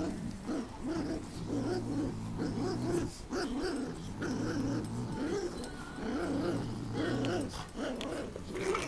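Pugs growling in play while tugging a rope toy between them: a continuous run of rough, rumbling growls.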